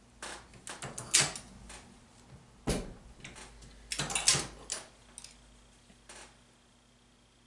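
Metal clicks and clacks from a Hornady Lock-N-Load single-stage reloading press being worked while the bullet seating die is run down a little for more seating depth. They come in two quick clusters, with one sharper knock between them and a few lighter clicks after.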